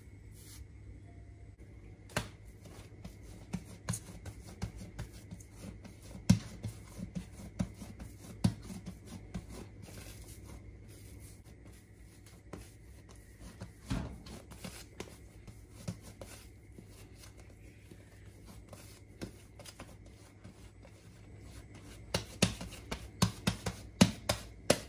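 Hands working soft bread dough, squishing and pulling it in a glass bowl and then pressing and rounding it on a silicone mat: irregular soft slaps and taps, with a quick run of them near the end as the dough is shaped into a ball. A faint steady low hum lies underneath.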